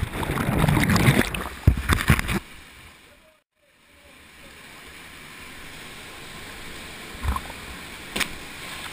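A jump into a canyon pool: a loud splash and churning rush of water as the camera plunges in, lasting a couple of seconds. The sound cuts out briefly, then the steady rush of the canyon stream and waterfall takes over at the surface, with a couple of short knocks near the end.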